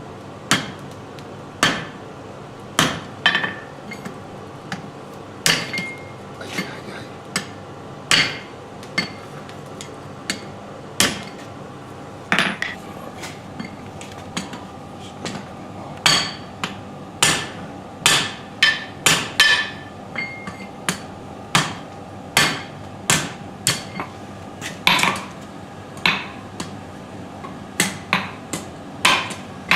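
Hand hammer striking a stainless steel workpiece in irregular blows, some spaced about a second apart and some in quicker runs, each with a short metallic ring. A faint steady hum runs underneath.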